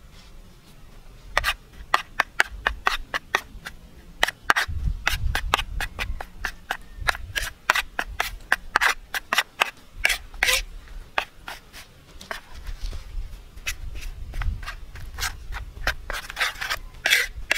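Metal knife blade mixing a thick curd-and-cornflour spice paste on a ceramic plate: repeated clicks and scrapes of the blade against the plate, a few each second, starting about a second and a half in.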